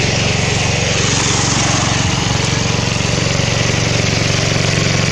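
Small engine of a two-wheel hand tractor running steadily, with an even low firing rhythm.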